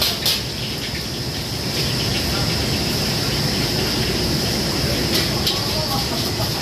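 Commercial wok station running: the steady roar of the gas wok burner and extraction, with hissing from the steaming wok. A bamboo wok brush scrapes against the wok a few times, near the start and about five seconds in.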